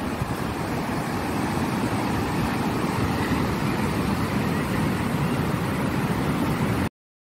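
Ocean surf breaking on a sandy beach, a steady rush of wave noise, with wind rumbling on the microphone. It cuts off abruptly near the end.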